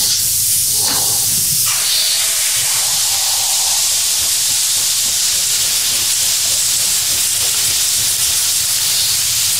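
Steady hiss of a clothes iron's steam as it is pressed onto a damp towel over stained carpet, heating the stain so it lifts into the towel.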